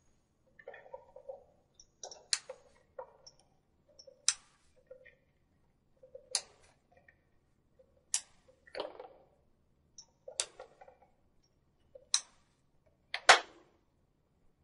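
Manual charging handle of an Eaton Series NRX low-voltage air circuit breaker being pumped to charge the stored-energy closing springs. Each stroke gives a soft ratcheting scrape and then a sharp click, about seven strokes roughly two seconds apart, with the loudest click near the end.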